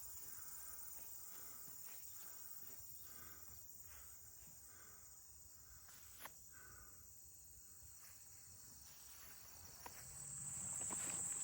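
A steady, high-pitched chorus of field insects such as crickets, growing louder about ten seconds in, with soft footsteps swishing through grass.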